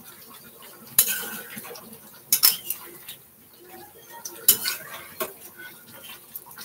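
A metal spatula scraping round a pan while stirring chicken curry, with several sharp clinks as it knocks against the metal, and a light sizzle underneath.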